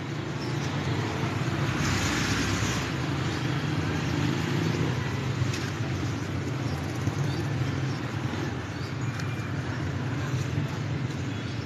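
Steady background road traffic noise, with a louder rushing hiss for about a second, about two seconds in.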